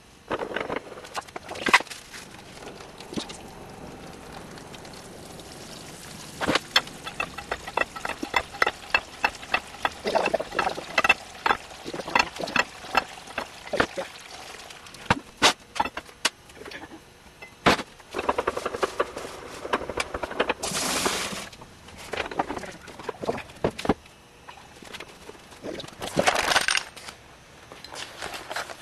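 Clicks and knocks from a wooden-basket cider press being worked, including a run of sharp, evenly spaced clicks at about two a second. There are two short noisy swishes later on.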